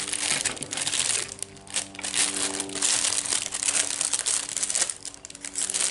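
Plastic mailer bag crinkling as it is handled and opened, in uneven bursts, over soft background music of held notes.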